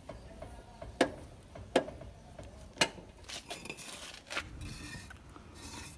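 A few sharp metal clinks from a car jack's crank rod being handled, then smaller knocks and a rough scrape as a brick is moved on paving stones.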